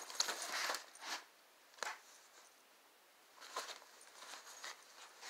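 Fabric of a cat play tunnel rustling and crinkling as the cat moves inside it and a hand works at the fabric: a burst of rustling at the start, then short scattered rustles.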